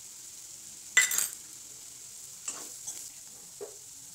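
A spatula scraping against a nonstick wok as dry stir-fried bitter gourd with groundnut powder is stirred: one sharp scrape about a second in, then a few lighter ones, over a faint sizzle.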